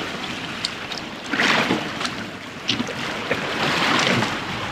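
Water rushing and splashing along a moving fishing boat's hull in choppy seas, swelling twice: about a second and a half in, and again near four seconds.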